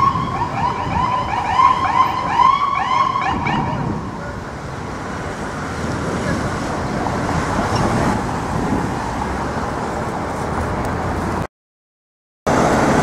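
An emergency vehicle siren in a rapid, repeating yelp for the first three or four seconds, then steady city street traffic noise. The sound cuts out completely for about a second near the end.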